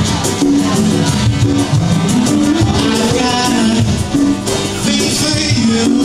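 Acoustic guitar strummed in a steady rhythm while a man sings held notes into a microphone, heard as a live solo performance.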